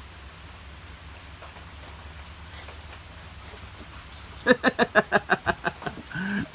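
Steady rain falling on surfaces. About four and a half seconds in, a hen cackles: a quick run of about ten clucks ending in one longer, drawn-out note.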